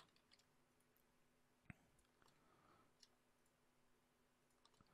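Near silence, with one faint computer mouse click a little under two seconds in.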